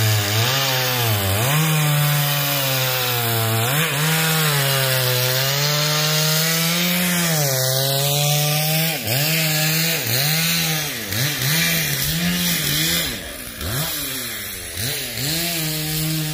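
Chainsaw bucking a felled pine tree: its engine note sags as the chain bites into the wood and climbs back as the load eases, over and over, with a quicker run of dips in the second half.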